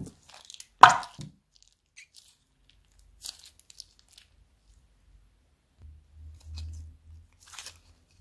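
Thick slime squeezed from a plastic zip-lock bag into a glass bowl, with one sharp plop about a second in followed by a few soft plastic crinkles.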